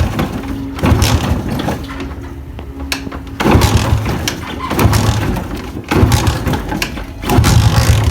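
Old motorcycle being kick-started over and over, about six kicks each giving a short loud churn of the engine that does not catch: the engine will not start.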